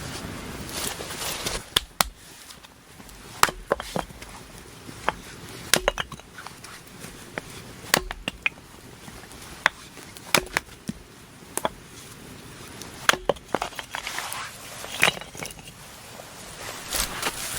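Sharp knocks and cracks, about a dozen at irregular intervals with some in quick pairs, over a low steady hiss.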